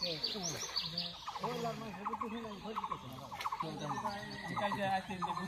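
Indistinct voices of people talking, with short bird chirps now and then.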